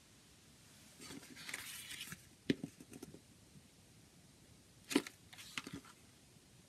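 Hands handling a cardboard CD digipak. First a second or so of rubbing and sliding, then two sharp taps about two and a half seconds apart, each followed by a few lighter clicks. The second tap is the case being set down on the table.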